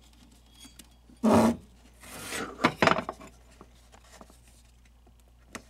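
Tools and parts being handled on a workbench: a short loud rustle about a second in, then a scrape and a couple of sharp clicks.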